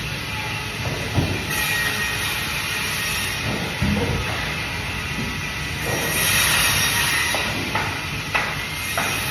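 Band saw running and cutting through fish: a steady hissing, grinding noise with a faint whine, and a few sharp knocks near the end.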